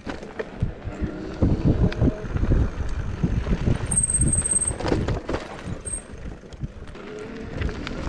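Irregular knocks and rattles of a ride over a rough, root-covered trail, with a low rumble under them. A brief high squeal sounds about four seconds in, and a shorter one near six seconds.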